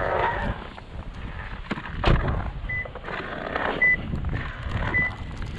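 Three short, high electronic beeps about a second apart, with a sharp knock about two seconds in, over a rustling, windy background.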